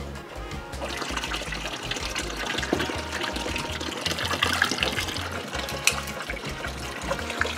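Water running from a tap into a plastic tub of water, steady, with a couple of sharp clicks.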